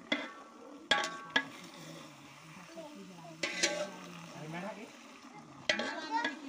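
Long metal ladle stirring frying mutton in a large metal pot, clanking against the pot about five times with a brief metallic ring, over the low sizzle of the meat.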